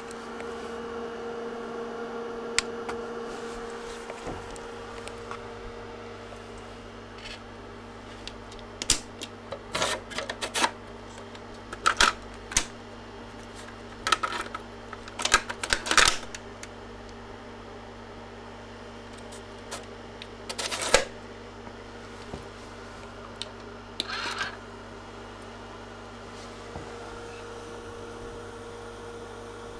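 A cassette being loaded into a Tandberg IS10 language-lab cassette deck: a cluster of sharp plastic clicks and clacks in the middle, then two more later, over a steady hum.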